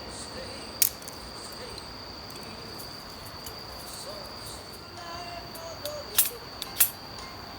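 Steady high-pitched insect trilling, with three sharp snaps from a small wood fire: one about a second in and two close together near the end.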